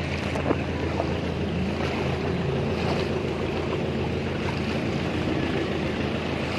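A motorcycle engine runs steadily as it wades through deep floodwater, with water sloshing and wind noise on the microphone.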